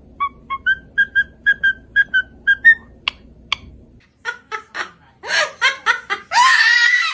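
A parrot whistling a quick string of short chirps, then a couple of clicks, then a rapid run of laugh-like calls ending in one longer, louder call.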